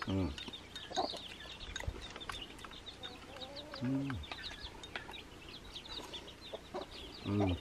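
Chickens: many short, high chirps from chicks, keeping up throughout, with a few brief low sounds mixed in.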